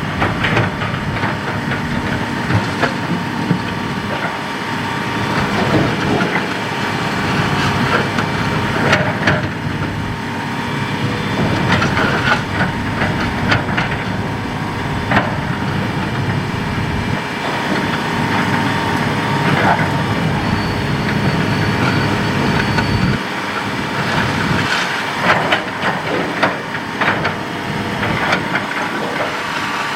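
Hitachi hydraulic excavator's diesel engine running steadily at working revs, with repeated knocks, scrapes and clatters of rock and gravel in and against the bucket as it digs and dumps fill.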